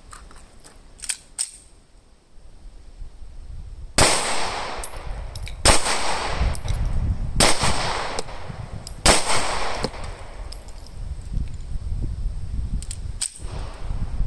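Sig Sauer P320 X Carry pistol fired four times, starting about four seconds in, with the shots roughly a second and a half to two seconds apart and each one ringing out. A few faint clicks come before the first shot.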